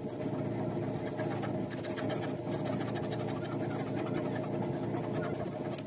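A steady motor drone. From about two seconds in, a fast, rapid scratching noise comes and goes over it.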